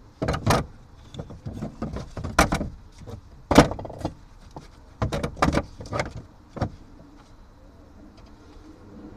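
Short wooden blocks knocked and clattered against one another as they are stacked into place by hand: a run of sharp knocks, the loudest about three and a half seconds in, stopping after about six and a half seconds.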